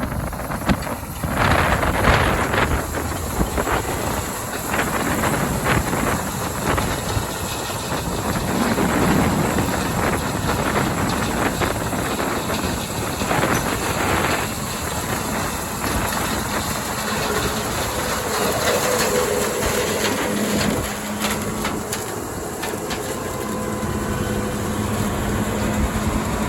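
Combine harvester with an Olimac Drago corn head running through standing corn, a steady mechanical din full of dense rattling and crackling. A faint steady hum comes in during the second half.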